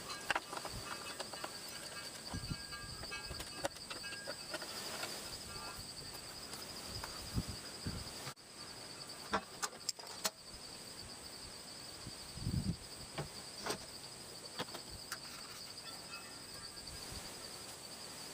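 Insects chirping in a steady, high, pulsing trill, with scattered short clicks and knocks throughout.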